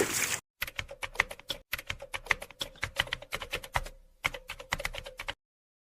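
Rapid keyboard-typing clicks, several a second, with a brief break about four seconds in. They cut off abruptly a little past five seconds, after a hard cut from outdoor field sound at the start.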